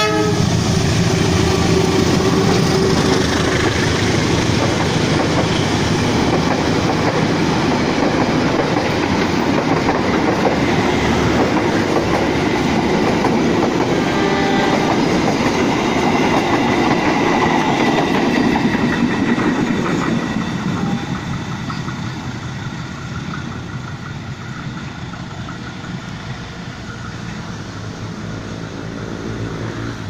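Diesel-hauled passenger train passing close by, its locomotive sounding a multi-tone 'telolet' horn as it comes up. The carriages then rumble and clack over the rail joints, and about twenty seconds in the sound drops away as the train recedes.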